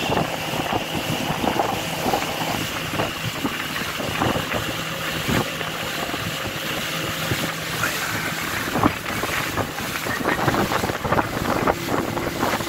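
A boat's engine running steadily under way, with wind buffeting the microphone and irregular splashes of water.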